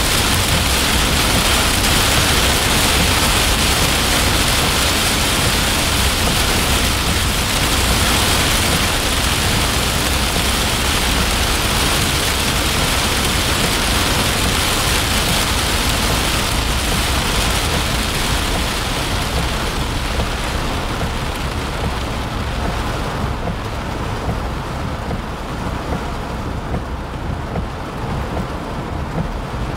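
Heavy rain pelting the windshield and roof of a moving car, heard from inside the cabin, over a steady low road rumble. The hiss of the rain thins out about two-thirds of the way through.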